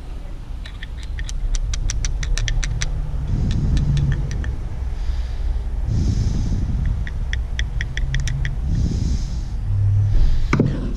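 Quick runs of light metallic clicks and taps from a hand tool and parts being worked on a Cummins fuel pump head, over a steady low rumble.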